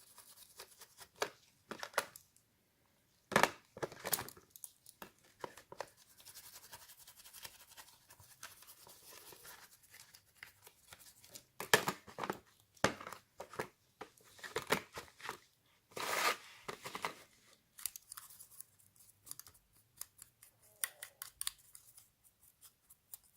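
Paint softened by paint stripper being scraped off a small die-cast metal model body, in short, irregular scratchy strokes with a few louder ones.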